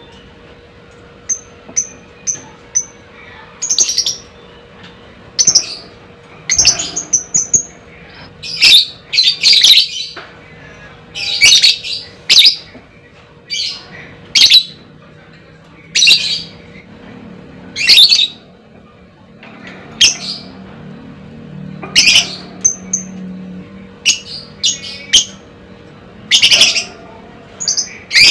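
Lovebird giving loud, shrill, harsh calls every second or two, with a few short high chirps in between early on.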